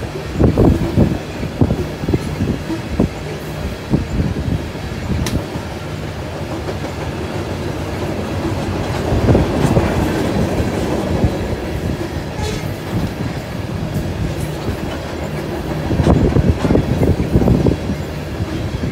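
Coal train hopper cars rolling past close by: a steady rumble of steel wheels on rail with a rapid clickety-clack of wheelsets over the track. The clacking is thickest near the start and again near the end, and smoother in between.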